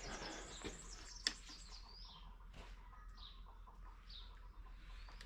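Faint birdsong: a bird repeats a short falling chirp about once a second, four times, with a single sharp click a little over a second in.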